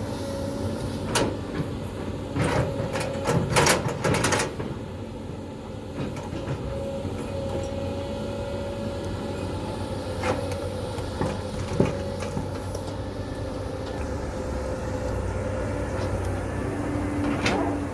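Caterpillar 320D L excavator's six-cylinder diesel running steadily with a steady whine, as it digs. Sharp metallic knocks and clanks come through it, a quick run of them a few seconds in and single ones later.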